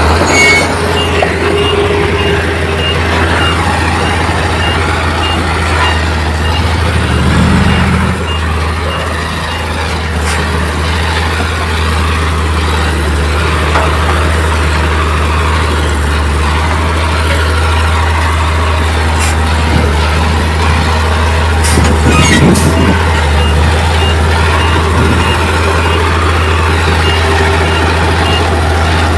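Heavy diesel earthmoving machinery running steadily, with a reversing alarm beeping about twice a second for the first several seconds and again from about three-quarters of the way through. A few brief sharp hissing sounds come just before the beeping resumes.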